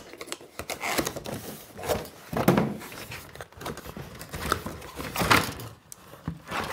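Cardboard shop-light boxes being handled and opened: irregular scraping, rustling and knocking of cardboard, with louder thumps about two and a half and five seconds in.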